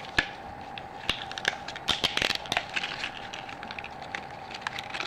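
Stiff plastic packaging crackling and crinkling, with scattered sharp clicks, as a pocket knife is worked free of it.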